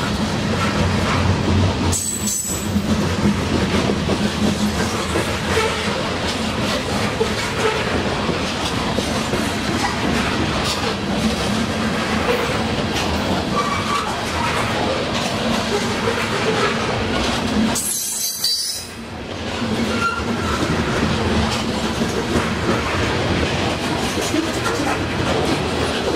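Norfolk Southern freight train's covered hopper cars rolling past close by, a steady noise of steel wheels running over the rails. The noise dips briefly once, about two-thirds of the way through.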